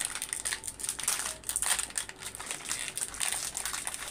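Plastic wrappers of small energy biscuit packets crinkling irregularly as they are bitten and torn open and handled.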